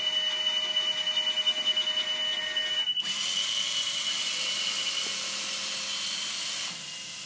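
Automated forklift safety crossing system changing state. Its warning alarm sounds a steady high tone, then cuts off sharply about three seconds in. The electric drives swinging the gates and lowering the cross arms then run with an even high hiss for about four seconds, dropping quieter near the end.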